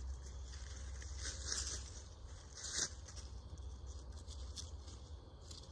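Nylon rope being pulled and wrapped around wooden ladder rungs, rustling against the wood and the dry leaves underneath, with a short sharp knock just before three seconds in. The rustling eases off in the second half.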